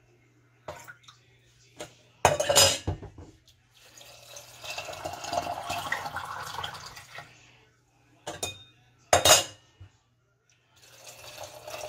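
Water poured through a stainless steel canning funnel into a glass mason jar of dry beans, broken up by loud metal-and-glass clanks as the funnel and pot are handled. There is a clank about two seconds in, then pouring for about three seconds, another sharp clank around nine seconds in, and pouring again near the end.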